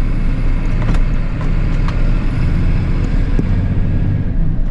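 Loaded lorry's diesel engine running steadily on the move, a continuous low rumble with road noise and a few faint ticks.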